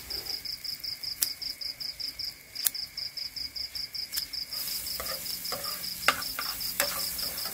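A cricket chirping steadily in a high, even pulse, about six chirps a second. Under it come a few sharp clicks, and frying in a pan starts to sizzle louder about two-thirds of the way in.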